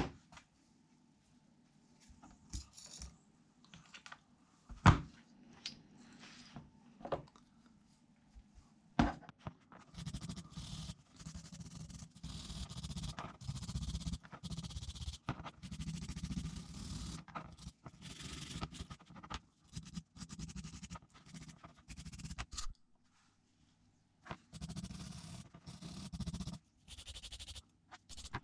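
A few sharp metallic clinks and knocks of gearbox parts being handled, then a small wire brush scrubbing a steel gear in rapid strokes for a long stretch, pausing briefly near the end before scrubbing again.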